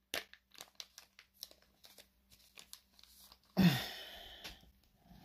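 Foil wrapper of a Pokémon booster pack crinkling in the hands with small crackles, then a loud rip about three and a half seconds in as the pack is torn open.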